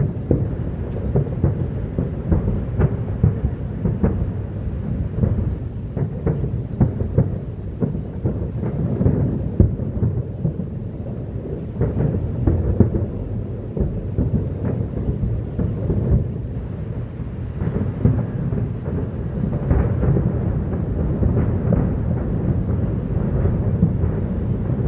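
Aerial fireworks shells bursting in quick, overlapping booms that run together into a steady rumble, with many sharper bangs through it.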